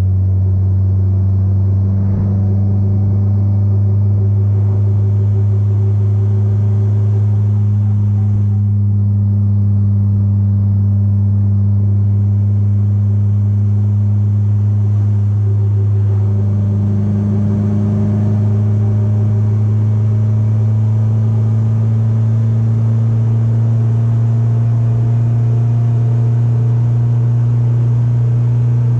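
Polaris Slingshot's four-cylinder engine running at a steady cruise as the open three-wheeler is driven, a constant low drone that holds nearly the same pitch throughout.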